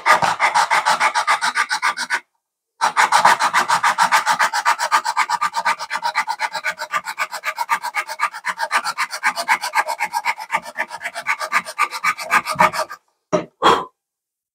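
120-grit sandpaper taped along a metal ruler's edge, rubbed rapidly back and forth in a band groove cut into a G10 slingshot frame to widen it: a fast, even rasping of about six strokes a second. There is a brief pause about two seconds in, and the rasping stops near the end, followed by two last short strokes.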